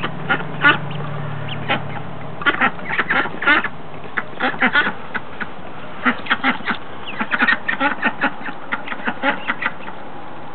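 A group of Ancona ducklings peeping: many short, high calls, often coming in quick runs of two or three.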